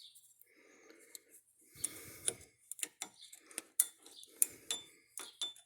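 Metal hand tools clicking and clinking against the front hub's axle nut and retaining cap while the cotter pin is fitted, a string of sharp separate taps over soft rustling.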